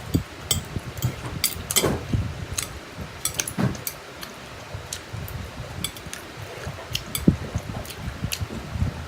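Close-miked eating sounds of spicy Korean instant noodles: irregular chewing with frequent sharp, wet mouth clicks and smacks.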